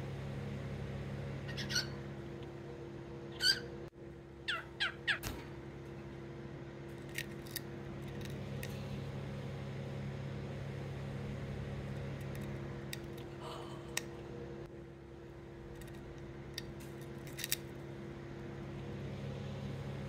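Baby cockatiel giving scattered short chirps, with a quick run of four falling calls about four to five seconds in, over a steady low hum.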